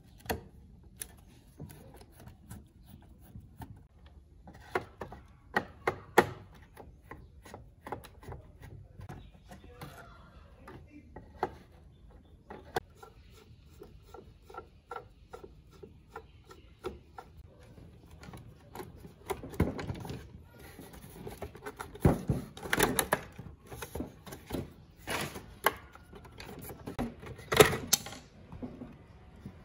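Plastic housing of an Aiwa CD radio-cassette boombox being handled and taken apart by hand: irregular clicks, taps and knocks of plastic parts. Louder clatter and rubbing come in the last third as the front panel is pulled away from the case.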